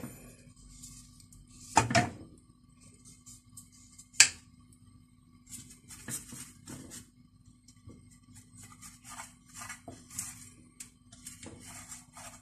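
Silicone spatula scraping and gathering thin strands of cooked kunafa dough off a nonstick frying pan, as a run of short, scratchy scrapes, with a couple of sharp knocks against the pan in the first few seconds, the loudest about four seconds in.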